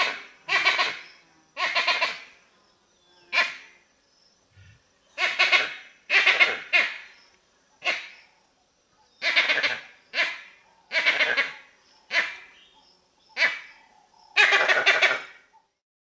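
Vervet monkey calls: a series of about a dozen short calls, one every second or so with some in quick pairs, separated by silence. The longest and loudest call comes near the end.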